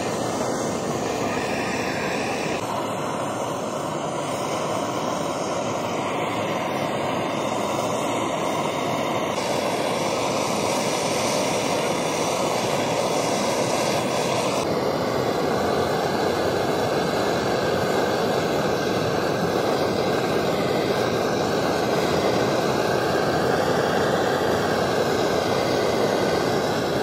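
Loud, steady machine noise that changes abruptly in tone a few times.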